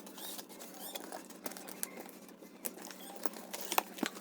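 Scattered light clicks, taps and rustles of hands handling packaging and box contents while unpacking a welding machine.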